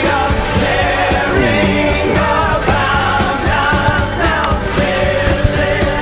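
Loud rock music with a singing voice over the band.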